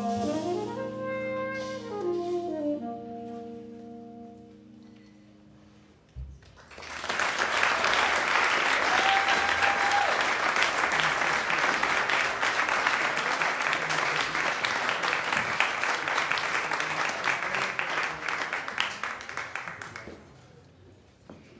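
A jazz combo's final held chord, led by tenor saxophone over bass, ringing out and fading away over about six seconds. After a low thump, the audience applauds for about thirteen seconds, with a brief whistle in the applause.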